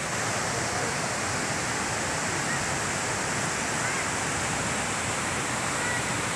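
Steady rush of a stream cascading over boulders below a waterfall: a continuous, even noise of white water.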